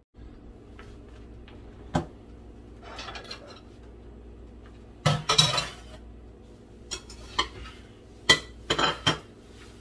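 Metal kitchen tongs clinking and tapping against dishes while garnishing a bowl of chicken adobo with cilantro: single sharp clinks, with a cluster of rattling clinks about five seconds in and several more near the end.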